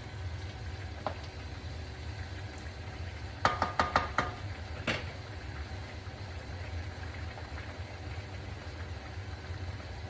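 A serving utensil knocking against the cooking pan, a quick run of about five sharp clinks a little over three seconds in and one more about a second later, over a steady low hum.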